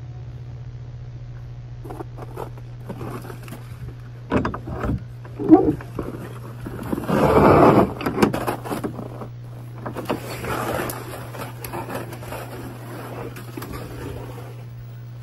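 Steady low hum with several animal-like growls over it: short ones about four to six seconds in, the loudest and longest about seven to eight seconds in, and another around ten to eleven seconds in.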